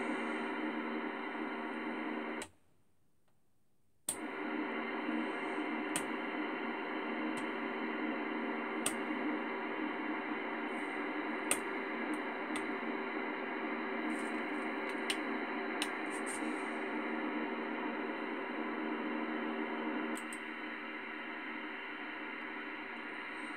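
Grundig CBH 2000 CB radio's loudspeaker putting out steady radio static. It cuts out for about a second and a half some two seconds in, then comes back, with a few sharp clicks over it.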